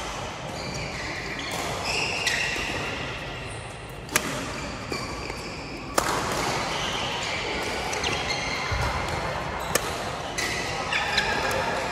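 Badminton being played: a few sharp racket hits on the shuttlecock, several seconds apart, over the general noise of the court.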